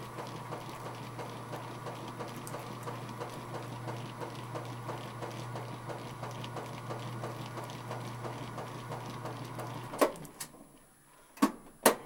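Top-loading washing machine agitating: a steady motor hum with rhythmic swishing of water at each agitator stroke. About ten seconds in the agitation stops with a sharp clunk and the hum cuts off, followed by two sharp clicks near the end.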